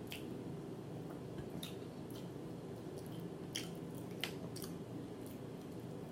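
Close-up mouth sounds of someone chewing food: wet smacking with sharp clicks, several a second at uneven intervals, over a steady low hum.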